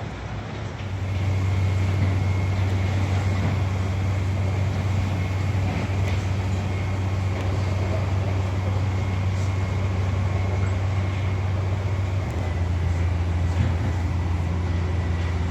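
A heavy engine running steadily with a low drone that swells about a second in, with a faint high whine over it.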